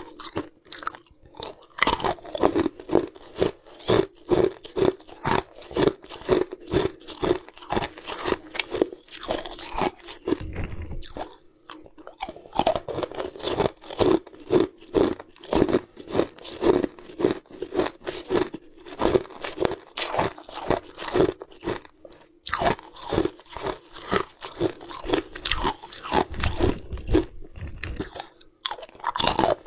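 Close-up crunching of hard ice chunks between the teeth, rapid repeated crunches with a couple of short pauses.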